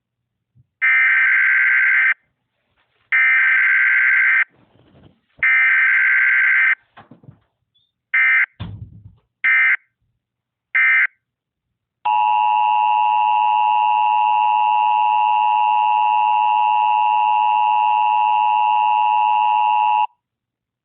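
Emergency Alert System tones: three long screeching bursts of SAME digital header data, then three short data bursts. Then the steady two-tone EAS attention signal (853 and 960 Hz) holds for about eight seconds and cuts off sharply.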